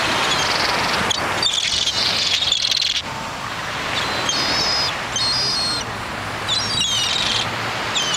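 A flock of gulls calling, short high cries repeated again and again as the birds flush and take off, over a steady rush of wind and surf.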